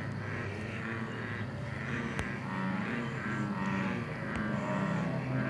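A steady low mechanical hum, like a motor running, with a single sharp click about two seconds in.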